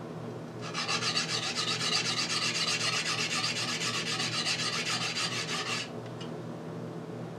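Usuba knife blade stroked rapidly back and forth on a convex-surfaced whetstone, a gritty rhythmic scraping that starts just under a second in and stops about six seconds in. The blade face is being ground to reach a low spot that a flat stone would not touch.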